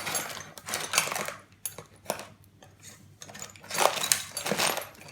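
Small metal tools clinking and rattling against each other in bursts as they are sorted through in search of a hex key.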